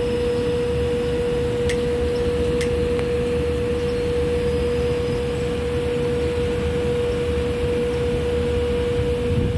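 A steady hum on one unchanging pitch over low background rumble, with two faint clicks about two seconds in.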